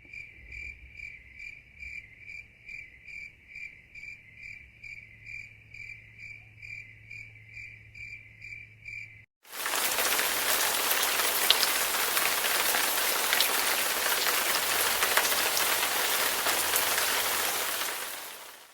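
Cricket chirping in an even rhythm of about two or three high chirps a second, which stops about nine seconds in. Steady rain follows and fades out near the end.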